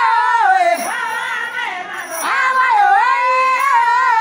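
A woman singing loudly close up, in long held notes that waver in pitch, broken into three phrases.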